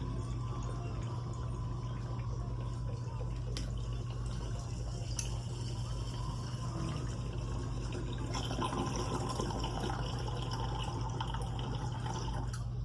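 Water bubbling in a bong as smoke is drawn through it during a long hit, over a steady low hum.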